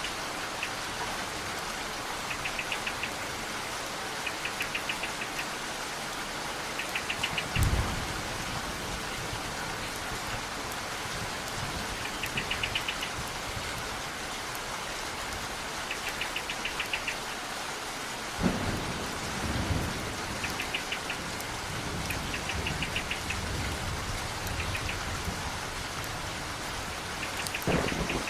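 Steady rain falling, with low thunder rumbling three times: about a quarter of the way in, past the middle, and at the end. A short, high, pulsing trill repeats every couple of seconds over the rain.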